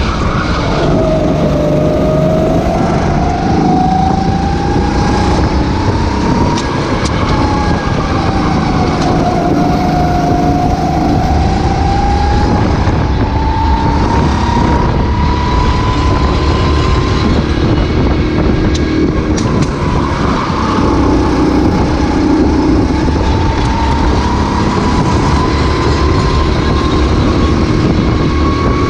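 Racing kart engine heard onboard at full race pace. Its pitch drops sharply about a second in, then climbs, dips and climbs again several times as the kart brakes for corners and accelerates out of them, over a steady rushing noise.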